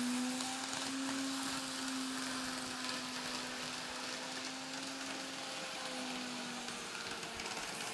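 Motor of a Kato N-scale GE AC4400CW model locomotive whining steadily as it pulls a freight train, its pitch wavering slightly, over a hiss of wheels running on the track.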